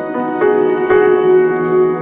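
Background music: gentle melodic notes on a bell-like keyboard or mallet instrument, changing about every half second.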